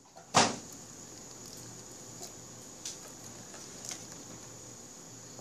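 Hands handling a plastic-wrapped doll and its cardboard box on a tabletop: one sharp knock about half a second in, then a few faint light taps.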